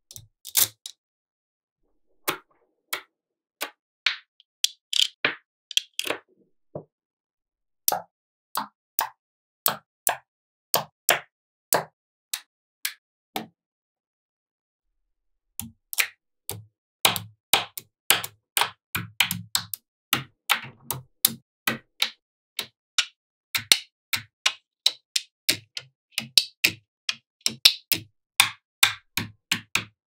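Magnetic balls clicking and snapping together as panels and strips of them are set in place, a run of sharp separate clicks with two short pauses. About halfway through the clicks come faster and carry a dull knock underneath.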